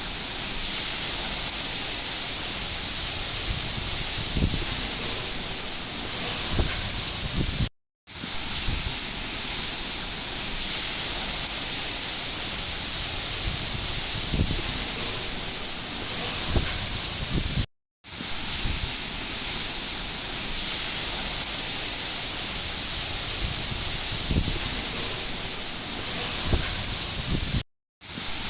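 Steady rain hiss with soft, scattered low splashes. It is a looped recording that cuts out to silence for a moment about every ten seconds and then resumes.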